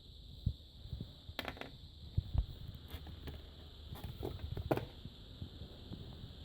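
Faint, irregular knocks and brief scrapes from hands working on the monitor's parts and tools, over a steady high-pitched hum.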